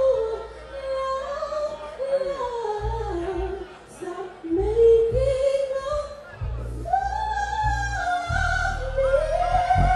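A woman singing live into a microphone, amplified over a backing track with deep bass notes that come in more strongly after a few seconds.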